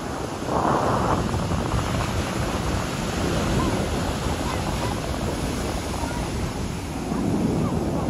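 Ocean surf breaking and washing up on a sandy shore, with wind buffeting the microphone; a louder rush of surf comes about a second in.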